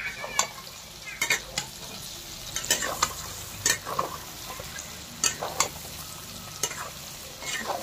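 Chicken gizzards and liver frying in oil in a kadai, stirred with a flat metal spatula. A steady sizzle is broken by irregular sharp scrapes and clinks of the spatula against the pan, about a dozen in all.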